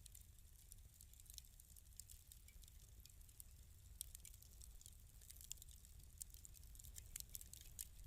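Wood fire in a fireplace crackling faintly: scattered small pops and ticks over a low, steady rumble, with the crackles coming more often toward the end.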